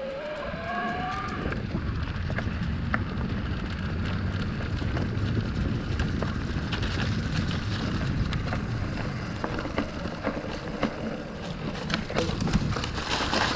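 Steady rumble of wind on the microphone and knobby tyres rolling over a dirt trail on an electric mountain bike, with scattered clicks and rattles from the bike. In the first second or so the mid-drive motor's whine rises in pitch.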